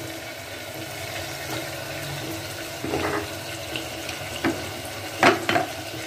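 Wet, freshly washed mutton pieces sizzling with a steady watery hiss in hot oil and tomato-onion masala in a pressure cooker. A metal slotted spoon scrapes and clicks against the pot a few times in the second half.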